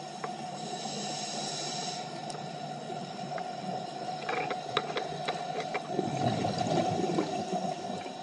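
Scuba diver breathing through a regulator underwater: a hiss of inhalation about a second in, then a rumble of exhaled bubbles near the end, over a steady hum with scattered clicks.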